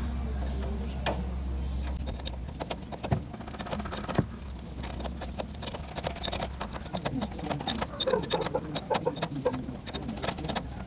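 Steel open-end wrench clicking and tapping against the tie rod end nut at the steering knuckle as the nut is worked by hand: a series of light metallic clicks, sparse at first and more frequent in the second half, with a low hum during the first few seconds.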